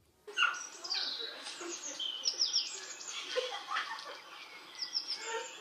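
Birds chirping: many short, quickly falling high calls overlapping densely, like a flock.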